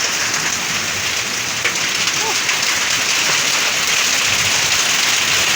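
Heavy hailstorm: hail and rain pelting down in a dense, steady clatter.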